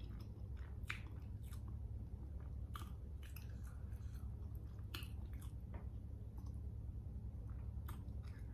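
Close-miked chewing of seafood boil: wet mouth sounds with scattered sharp smacks and clicks, over a steady low hum.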